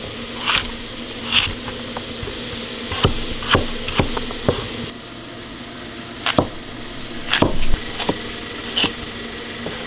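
Kitchen knife cutting potatoes into strips on a chopping board: about ten sharp knife strikes against the board, irregularly spaced.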